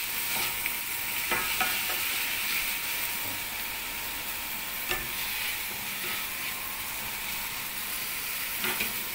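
Chicken pieces with onion and tomato sizzling steadily in oil in a stainless steel frying pan as they are stirred with a wooden spatula, which knocks against the pan a few times.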